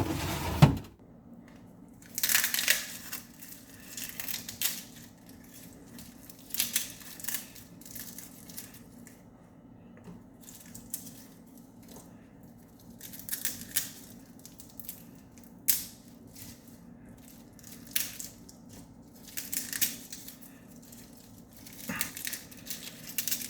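Intermittent crinkling and rustling from hands at work in a kitchen, in short irregular bursts with a sharp click near the middle, over a steady low hum.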